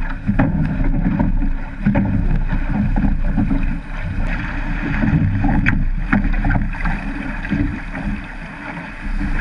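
Wind buffeting the microphone and water rushing and splashing along a rowed surf boat as it drives through breaking waves, with a few sudden sharp hits from oars and spray.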